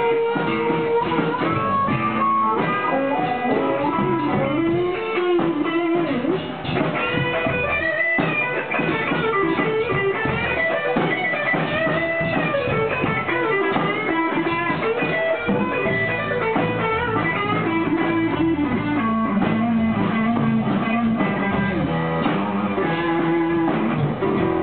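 A blues band playing live: electric guitar, bass guitar and drums, with harmonica over the first few seconds.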